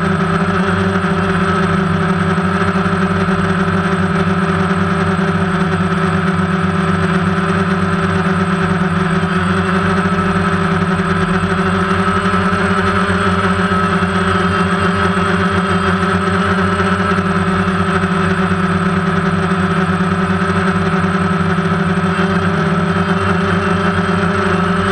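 Steady, even-pitched hum of a multirotor drone's motors and propellers, picked up by the camera riding on the drone.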